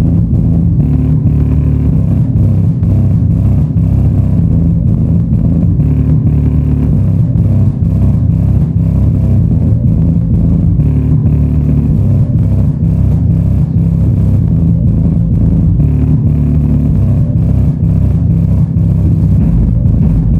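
A song played loud through subwoofers driven by an STK4141 stereo amplifier board with a bass-treble preamp: heavy, deep bass with a steady beat about twice a second and little treble.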